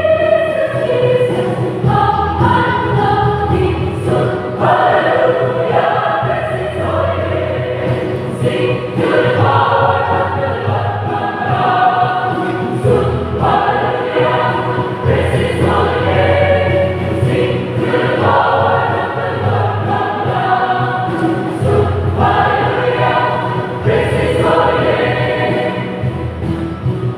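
A congregation singing a hymn together, many voices in long phrases of held notes.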